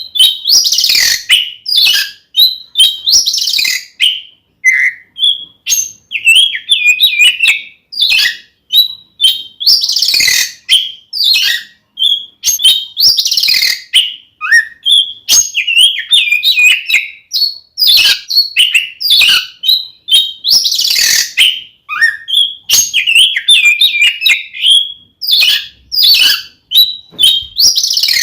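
Oriental magpie-robin (kacer) singing a loud, fast, varied song of short whistled and chattering phrases, broken every few seconds by harsh rasping calls: the aggressive fighting-mood song that keepers play to provoke other magpie-robins.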